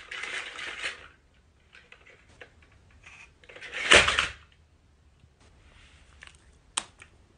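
A battery-powered plastic toy dinosaur toppling over and clattering onto a wooden floor in one loud crash about four seconds in. Before it there is a short rattle and a few faint clicks, and a single sharp click comes near the end.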